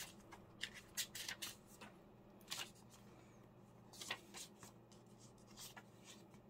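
Sheets of printed paper leafed through by hand: a string of soft, short rustles and flicks as pages of a small paper pad are turned, bunched in the first two seconds and again around four and six seconds in.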